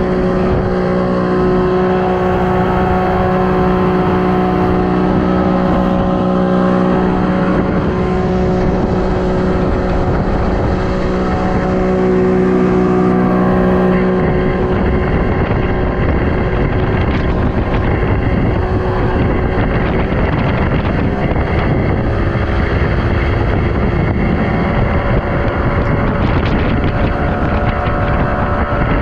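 Motorboat engine running under way, a steady hum whose tone shifts about halfway through.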